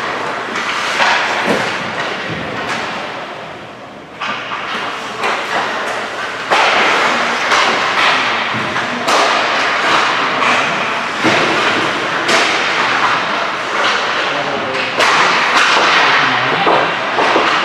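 Ice hockey on-ice play: skate blades scraping and carving the ice under repeated sharp cracks of sticks and pucks and thuds against the boards, many times over.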